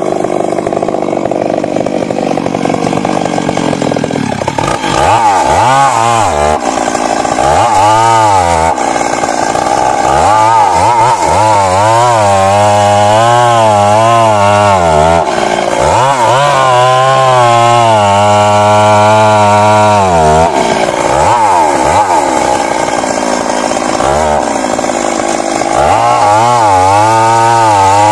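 Stihl MS 382 two-stroke chainsaw cutting into a big tree trunk, loud, its engine pitch wavering up and down under load and dropping briefly several times as the chain bites into the wood.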